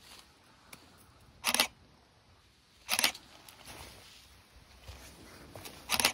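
Camera shutter clicks, three of them: about a second and a half in, at three seconds and at the very end, each a short sharp click-clack.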